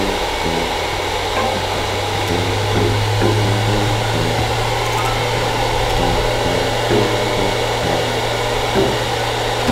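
Handheld hair dryer running steadily: a constant rush of air over a low motor hum.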